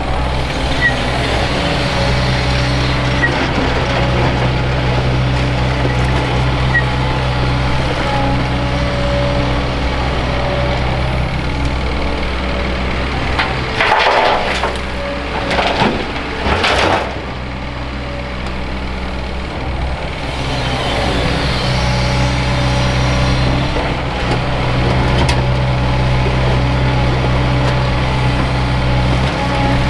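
JCB JS210 excavator's diesel engine running under load as it works the hydraulics, a steady drone that lightens for a few seconds near the middle. About halfway through, a bucketload of dirt and rocks is dropped into a steel dump truck body, clattering in a few loud bursts.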